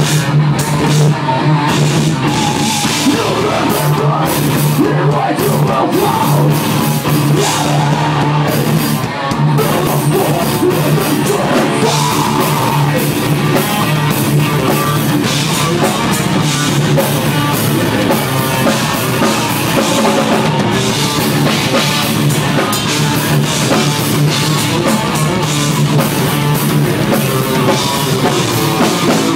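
Thrash metal band playing live: drum kit and distorted electric guitars, loud and continuous.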